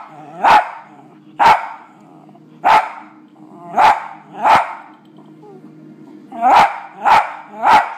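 A West Highland White Terrier barking: about eight loud single barks roughly a second apart, with a pause of about two seconds in the middle. It is barking at dogs on the television.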